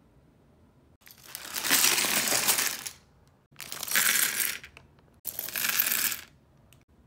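Small plastic LEGO pieces clattering onto a LEGO baseplate as they are poured out of a plastic bag, in three bursts of rattling, the first and longest about a second in.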